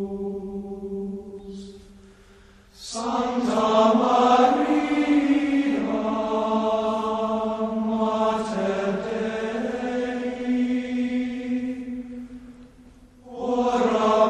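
Slow choral chant in long held notes, moving in steps from one pitch to the next. One phrase fades out about two seconds in, a long phrase follows, and a new one begins just before the end.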